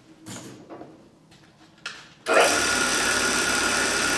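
Faint clicks of a clock movement being set into a fixture, then about two seconds in a belt-driven riveting machine starts and runs steadily, riveting the steel pillars of an alarm-clock movement to its plate.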